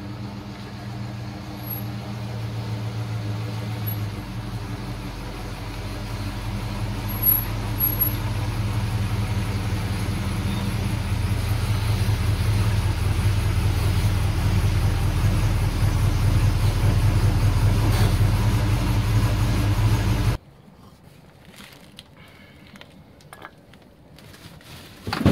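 Ford XW Falcon's engine running as the car drives slowly into the garage, a steady low rumble that grows louder as it comes close. About 20 seconds in it cuts off suddenly, leaving only faint rustling and knocks.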